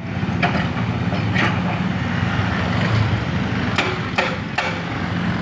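An engine running steadily, with five sharp knocks or clanks scattered through it.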